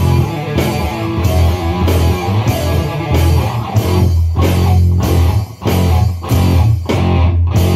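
Distorted electric guitar and an electronic drum kit playing a loud, improvised heavy rock riff. In the second half the riff turns stop-start, with short breaks between hits.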